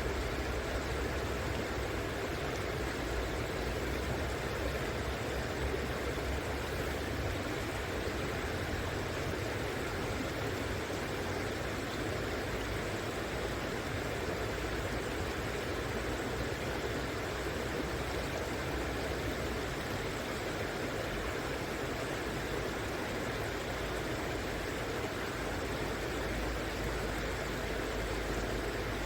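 River water flowing steadily, an even rushing noise with a low, unsteady rumble underneath.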